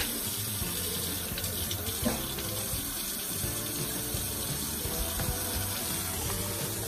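Kitchen faucet running steadily into the sink, with a couple of light knocks along the way.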